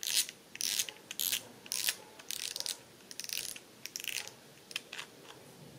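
Front drag knob of a Dragon spinning reel clicking in short ratchet bursts as it is turned and unscrewed to release the spool. The bursts come every half second or so at first and grow fainter and sparser toward the end.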